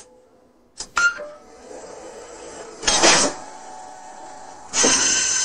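AI-generated sound effects added to a silent video clip: a sharp click about a second in, then a noisy, clattering stretch with a loud burst around three seconds in and a louder stretch near the end.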